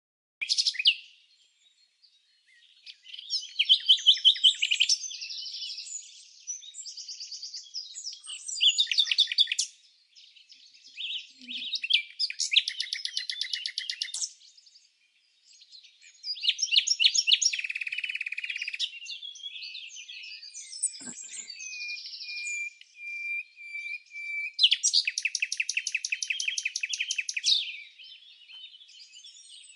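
Songbirds singing in bursts of rapid, high-pitched trills and chirps separated by short pauses, with one long steady whistled note a little past the middle.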